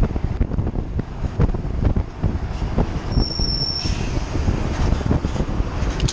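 Wind rushing over the microphone of a mountain bike ridden at speed in traffic, with road rumble. About three seconds in, a single high, steady squeal lasts under a second.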